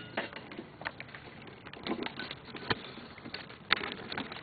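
Scattered light clicks and rustling as hands work a plastic cable tie around engine-bay cables, with a sharper click about two and a half seconds in and another a second later.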